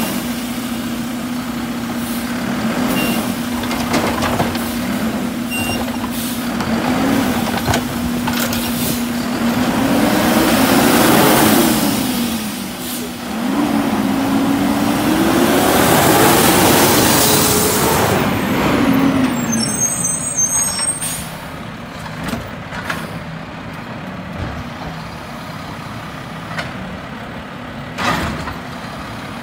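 Mack side-loader garbage truck's diesel engine idling, then revving up twice for several seconds each, the pitch climbing and falling back. The sound then settles to a quieter steady truck engine, with a short air-brake hiss near the end.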